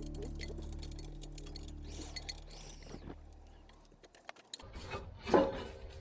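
Background music whose held notes fade out, followed by light metallic clinking and one sharp knock about five seconds in.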